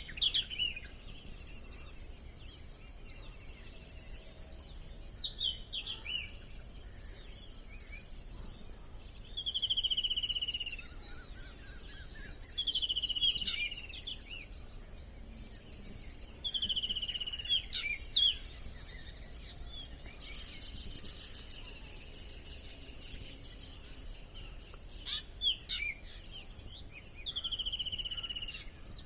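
A bird repeats a slightly falling call about a second long, four times at intervals of a few seconds, with scattered short chirps in between. Under it runs a steady high insect drone.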